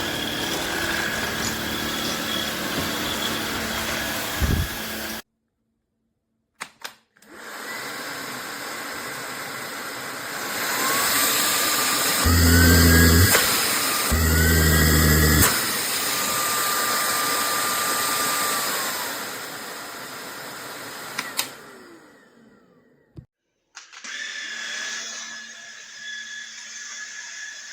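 Cordless stick vacuum cleaner's motor running in several short takes separated by abrupt cuts. In the middle take its whine rises and falls in pitch, and a loud low rumble comes in twice, a second or so each.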